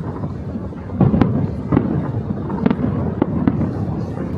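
Fireworks show bursting: a string of about six booms and sharp cracks, starting about a second in, each trailing off in a low rumble.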